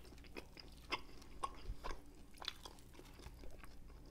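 Quiet chewing of saucy pork ribs: soft, wet mouth clicks and smacks at irregular intervals.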